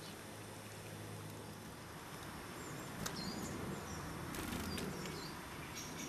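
Small songbirds at a seed feeder giving short, high chirps several times from about halfway in, over steady outdoor hiss, with a click and a brief rustle partway through.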